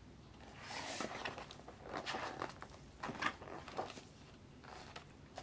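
Pages of a picture book being turned and pressed flat on a table: soft paper rustles and slides, several in a row, faint.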